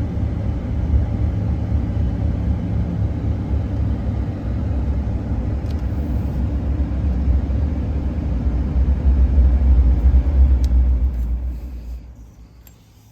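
Vehicle on the move: a steady low rumble of engine and road noise that falls away near the end.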